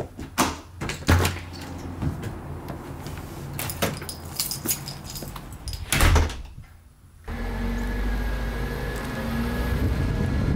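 Clicks and knocks of a door being handled, with a heavy thump about six seconds in. Then, after a brief hush, the steady low engine and road noise of a car driving.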